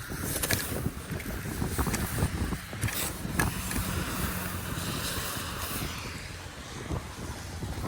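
Storm wind gusting against the microphone, an uneven low rumble with a hiss that swells in the middle and a few sharp clicks.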